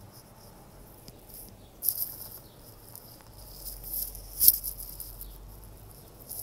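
Faint, scratchy rustling and brushing from a hand moving through hair and handling the phone. There are a few short bursts, about two seconds in and again around four seconds, the sharpest a little after four seconds. A low hum sets in partway through.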